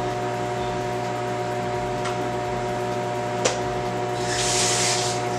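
A steady kitchen-appliance hum with a few constant tones, with two light clicks, then about four seconds in a brief hiss of salt being sprinkled over raw chicken fillets.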